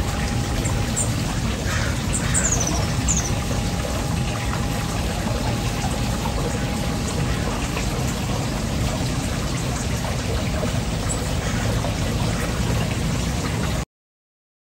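Steady pouring and splashing of water, as from a backyard fish-pond fountain, with a few short high bird chirps over it.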